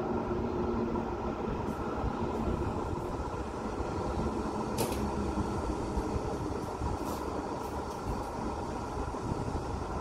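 Steady rumble of city road traffic heard from high above, with a short hiss about five seconds in.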